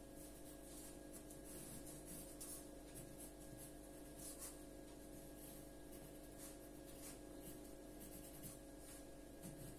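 Faint scratching of a pencil on paper in short, irregular strokes as guide lines are sketched.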